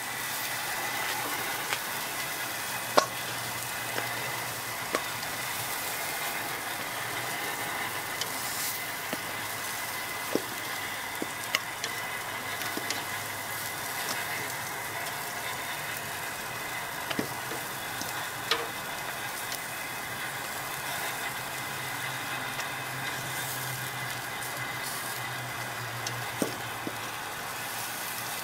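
Zucchini slices sizzling on a hot gas grill with a steady hiss. Scattered sharp metal clicks come from tongs striking the grate and a stainless steel bowl as the slices are lifted off.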